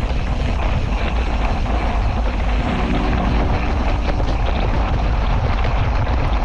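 Steady rumbling noise with hiss, such as wind buffeting a moving camera's microphone, with a faint tune of held notes about three seconds in.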